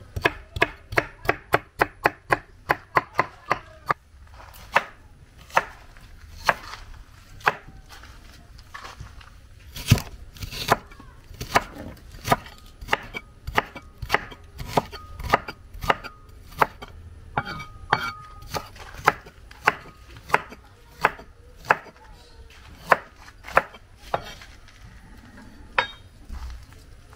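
Knife chopping food. For the first few seconds it goes in quick, even strokes of about four a second, then slows to uneven strokes about one or two a second, which stop near the end.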